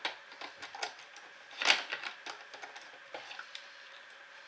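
Small irregular clicks and scrapes of a screwdriver loosening a terminal screw on the back of a fire alarm pull station while wire ends are worked into the terminal, with one louder knock a little under two seconds in.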